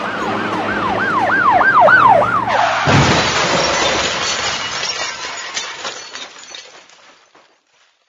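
Comedy sound effect: a wailing, siren-like tone swoops down and up over music, coming faster and louder. About three seconds in it is cut off by a loud crash with a clatter of falling debris, which fades out over about four seconds.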